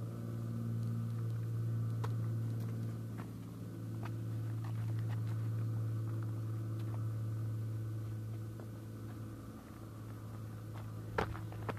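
A steady low mechanical hum with several fainter steady tones above it, with scattered faint clicks and a sharper knock near the end.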